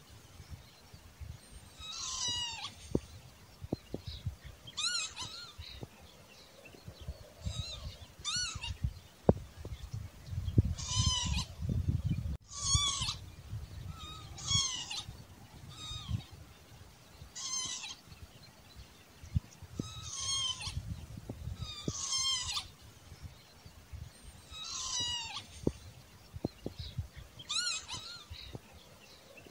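Northern lapwing calling over and over: a slurred, mewing 'pee-wit' call about every two to three seconds. A low rumble runs underneath, strongest about midway.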